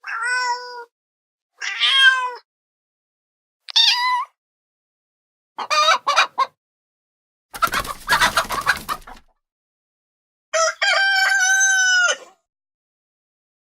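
A string of separate animal sound effects: three short cat meows, then a few brief chicken clucks, a noisy burst with no clear pitch, and one long held rooster crow near the end.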